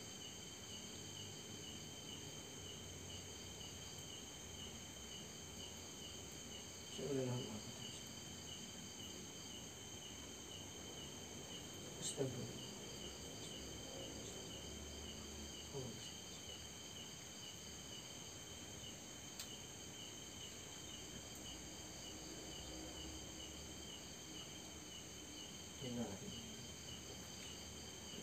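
Faint, steady chorus of night insects, a rapid pulsing high trill with several steady high tones over it. A few brief sounds falling in pitch break in now and then.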